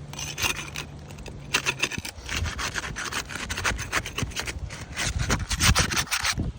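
Rough scraping and rubbing against asphalt roof shingles, a quick run of short strokes that grows busier about a second and a half in.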